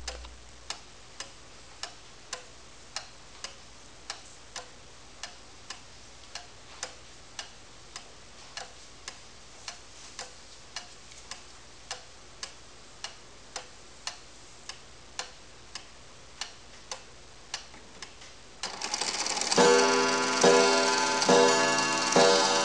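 Chauncey Boardman pendulum clock ticking evenly about twice a second. About 18.5 seconds in, its striking train whirs into motion and the hammer begins striking the hour on the bell, each stroke ringing on into the next.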